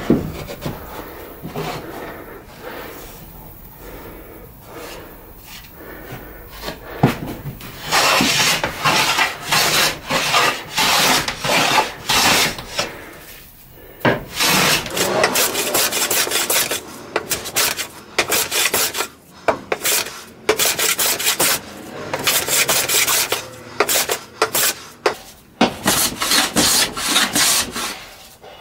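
Hand plane shaving old paint and wood off a painted tabletop in repeated short strokes. The strokes are fainter and sparser for the first several seconds, then come steadily, about two a second.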